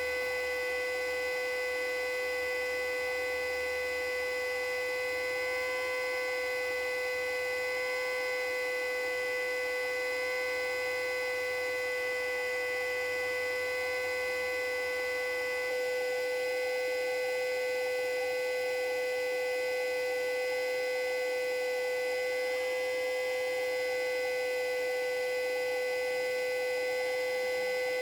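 Federal Signal Model 2A siren sounding a full alert: one steady, unwavering tone with overtones and no rise or fall in pitch. The sound gets slightly louder about 16 seconds in.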